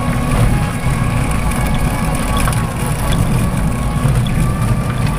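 Steady low engine rumble of a slow-moving vehicle, with a faint thin whine above it.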